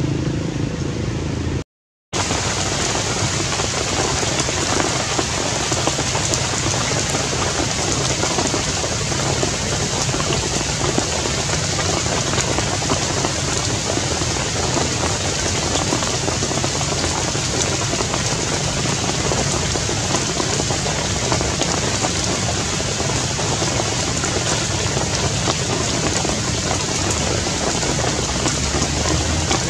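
Steady heavy rain, an even hiss that does not change, starting after a brief break to silence about two seconds in.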